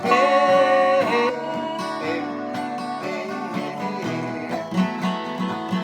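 Acoustic guitar playing an instrumental passage, louder for about the first second.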